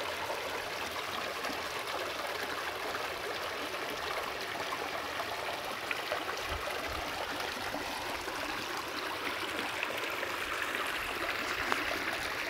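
Shallow clear stream water running and trickling over stones into a small pool, a steady even rush.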